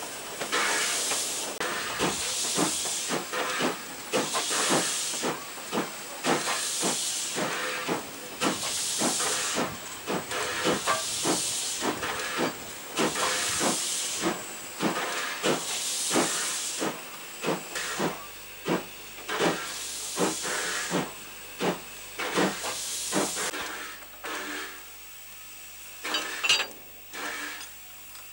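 Narrow-gauge steam tank locomotive 1047 moving slowly, with steam hissing in regular bursts about every two seconds and many sharp clicks between them. The bursts fade and the sound grows quieter about three-quarters of the way through.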